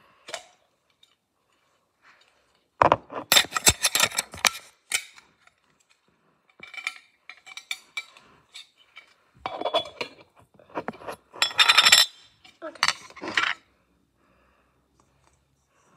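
A glass jar clinking and clattering as it is handled, in several short bursts of rattling with quiet gaps between.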